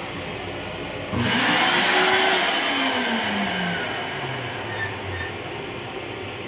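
Long Island Rail Road M9 railcar toilet flushing: a sudden loud rush of air and water about a second in that fades over a few seconds, with a motor whine that rises briefly and then winds down.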